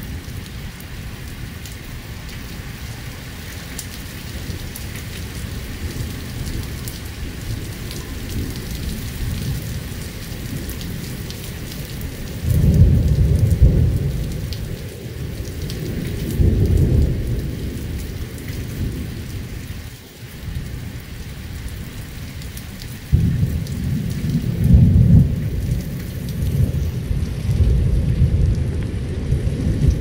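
Light rain falling steadily, with distant thunder. A low rumble rolls in about halfway through, a second follows a few seconds later, and a longer stretch of rumbling fills the last quarter.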